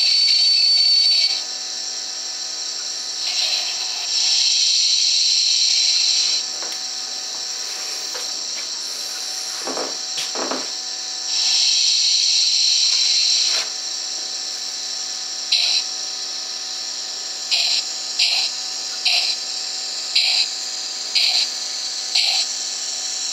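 Sound decoder of a Piko HO-scale 040 (BR 55) steam locomotive model, played through its small onboard speaker. Long steam hisses come first, then steam chuffs start up at a slow beat, about one or two a second, as the model pulls away.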